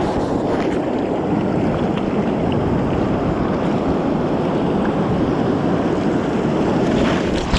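Wind buffeting the microphone over the wash of breaking surf: a steady, loud rushing noise.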